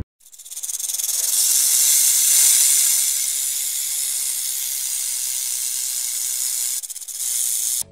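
Snake hissing: one long hiss that swells in at the start, breaks briefly about seven seconds in, and cuts off suddenly at the end.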